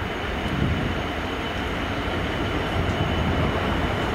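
Class 66 diesel-electric locomotive approaching slowly with a freight train, its EMD two-stroke V12 engine running with a steady low rumble, together with the noise of its wheels on the rails.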